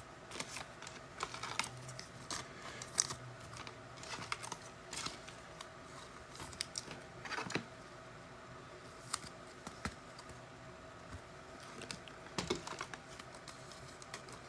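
Faint, irregular small clicks, taps and slides of trading cards and pack wrappers being handled.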